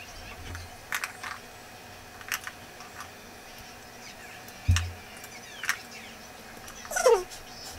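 Small clicks and taps from a mascara tube and compact mirror being handled, with a low thump about halfway through and a short squeak that falls in pitch near the end.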